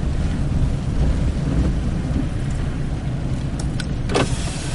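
Steady low rumble of a car driving slowly, road and engine noise heard from inside the cabin. A few short clicks come near the end.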